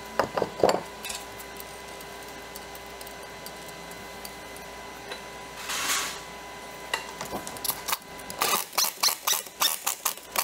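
Car wheel being refitted: sharp metal clinks as the wheel goes onto the hub and the nuts are started, and a short hiss about six seconds in. Near the end comes a run of quick rattling knocks as a wheel nut is driven home with an air impact wrench.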